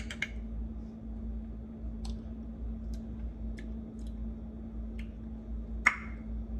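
A metal spoon clinks a few times against a glass jar right at the start, then faint mouth clicks and lip smacks of someone tasting from the spoon, with a sharper smack near the end. A steady low hum runs underneath.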